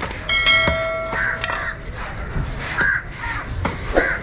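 Crows cawing, short harsh calls about every second and a half. About a third of a second in, a bright bell-like chime rings for over a second, and a few sharp knocks are heard.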